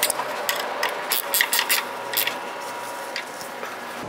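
Wrench clicking on the bolts of a bandsaw wheel's pillow-block bearing mount as they are tightened down to lock in a wheel cant adjustment: quick irregular metallic clicks that thin out after about two seconds, with a couple more later.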